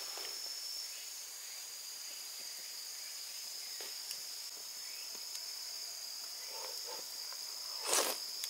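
Insects, crickets by the sound, chirring in one steady high-pitched tone, with a few faint ticks and a brief loud rustle near the end.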